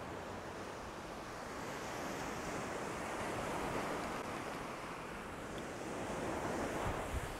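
Ocean surf breaking and washing up the sand close by, swelling louder about three seconds in and again near the end.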